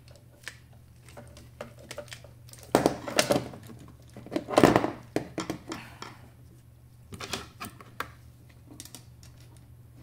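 Plastic centrifuge door-lock assembly and its wiring being handled and fitted into the housing: scattered clicks and rattles, with louder clattering about three seconds in and again about five seconds in.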